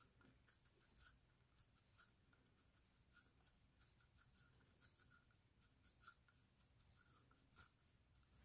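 Very faint, irregular soft clicks and squelches of moist kibbeh dough (ground bulgur and beef) being pressed and shaped by hand, a few times a second.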